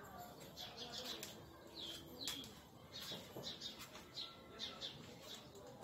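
Faint chirping of small birds: scattered short, high calls, some sliding down in pitch, over a quiet background.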